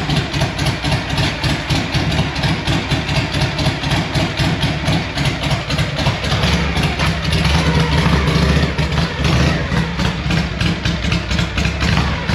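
1962 Harley-Davidson Panhead's air-cooled V-twin engine running at a steady idle with an even beat of firing pulses, a little louder for a moment about eight seconds in.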